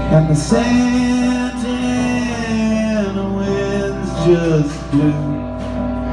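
Live band playing an instrumental passage: guitar and keyboard, with lead notes that bend up and down in pitch.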